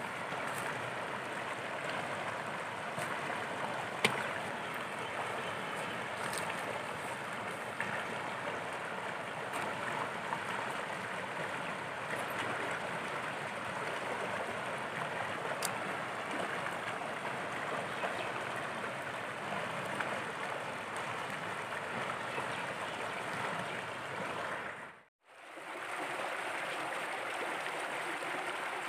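Shallow stream running over rocks, a steady rush of water, with a few sharp clicks over it. The sound drops out for a moment near the end, then the stream comes back.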